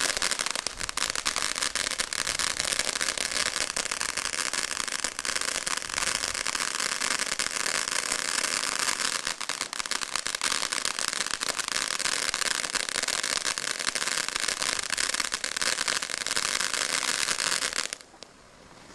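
Kimbolton Glittering Gemstones combination firework fountain burning: a steady rushing hiss of sparks thick with crackles. The noise drops off sharply about a second before the end.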